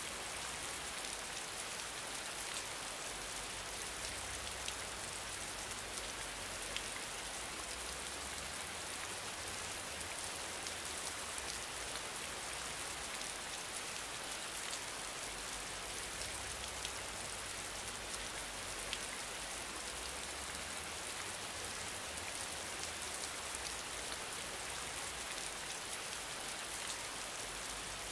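Steady rain-like hiss, even throughout, with a few faint ticks like single drops.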